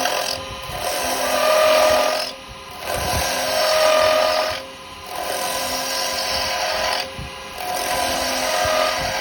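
Carbide chisel cutting hard yew spinning on a wood lathe: a loud scraping hiss in several passes, broken by short pauses every two seconds or so as the tool comes off the wood. A faint steady tone sings under some of the cuts.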